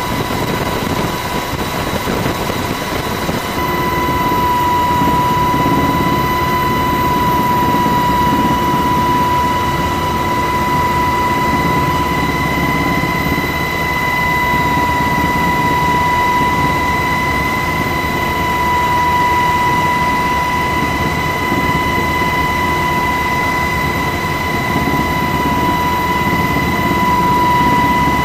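Steady in-flight drone of an HC-130J Combat King II's turboprop engines heard from inside the aircraft, a low rumble with a steady high whine over it. The tone shifts slightly about three and a half seconds in, then holds steady.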